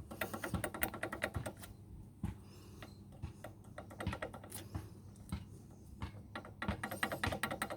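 Worn wheel hub bearing assembly from a 4x4 pickup being rocked by hand, clicking and rattling rapidly through its excessive play: the bearing is shot. The rattling comes in two spells, at the start and again near the end, with scattered clicks between.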